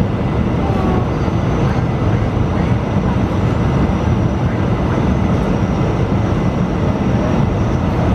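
Airbus A320 engine and airflow noise heard inside the passenger cabin on the approach to land: a loud, even, deep rush with a faint steady high whine above it.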